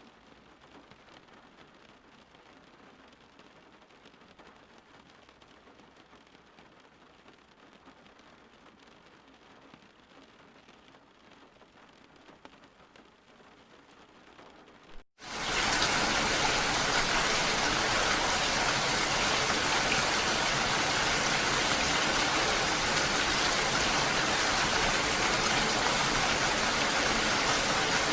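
A faint steady hiss of ambience for about fifteen seconds. After a split-second dropout, heavy steady rainfall comes in abruptly, much louder, and keeps on evenly.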